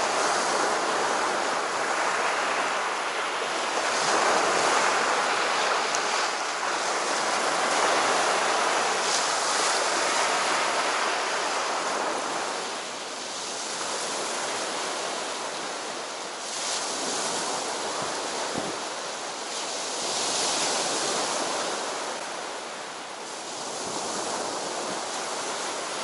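Sea of Azov surf breaking and washing up on a shelly beach: a continuous rush of water that swells and ebbs every few seconds.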